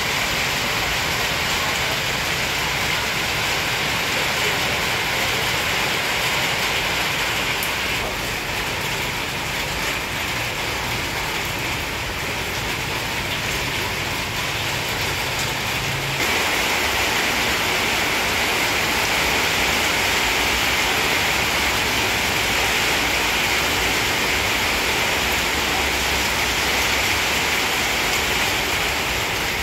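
A steady, even rushing hiss with no separate events, a little louder from about halfway through.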